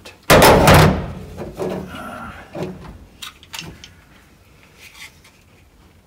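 A single loud bang about half a second in, followed by softer scattered clicks and knocks of small hardware being handled.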